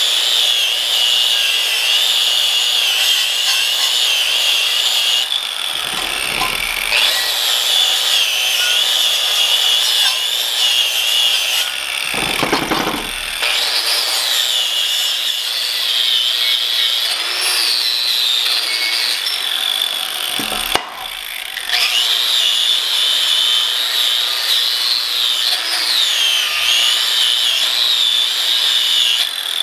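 Flux-core MIG welding with a Millermatic 251 running .045 flux-core wire: the arc crackles steadily as a bead is laid. It breaks off briefly a couple of times and then strikes again.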